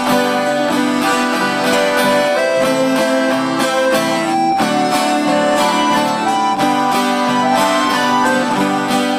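Instrumental introduction of a sertanejo song: acoustic guitars strumming and picking with an accordion holding sustained chords, no singing yet.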